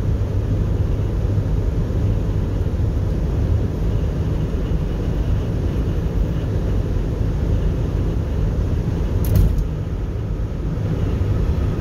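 Steady low rumble of a car's road and engine noise, heard from inside the cabin while driving. A single short click about nine seconds in.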